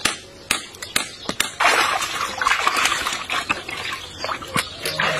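Several sharp hammer knocks, then, from about a second and a half in, water sloshing and splashing in a steel basin as hands scrub a cow's head.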